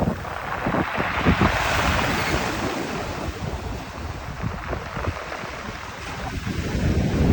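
Rough sea surf: waves breaking and washing up the shore, one surge swelling about a second in and then drawing back. Wind buffets the microphone with low thumps throughout.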